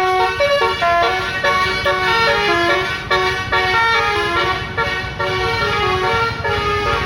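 Bus telolet horn playing a quick multi-note tune in stepped tones, over the low rumble of the bus.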